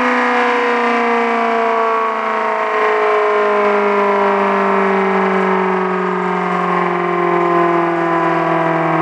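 Homemade motor-driven air raid siren wailing loudly, its pitch falling slowly and steadily as the rotor winds down.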